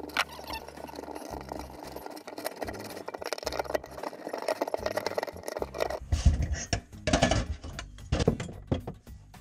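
Metal clinking, scraping and rattling as a kitchen sink basket strainer's tailpiece and nut are unscrewed by hand under a stainless steel sink, with louder knocks about six seconds in as the parts come free.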